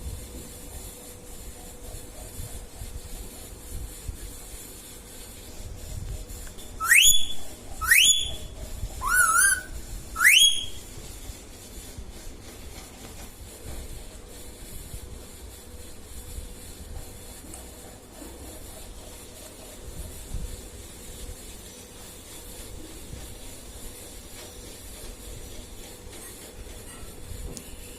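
Indian ringneck parakeet giving four loud, rising whistled calls in quick succession, the third with a wavering trill. Otherwise only low room noise with a faint steady hum.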